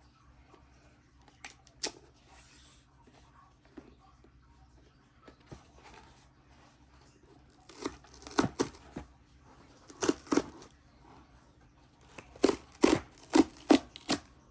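Packaging being torn open by hand: short ripping sounds in scattered bursts, one early and then several clusters, coming thicker and loudest near the end.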